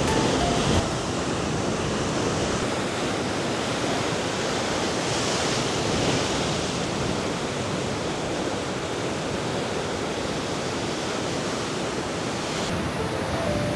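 Sea waves surging onto the shore, a steady rushing noise.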